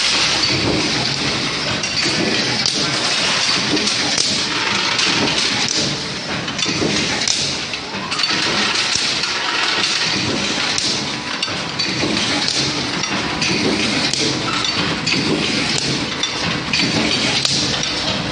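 Hot-forging hexagon-nut production line running: a loud, continuous machinery din with frequent irregular metal clanks and thuds from the feeding and forging press.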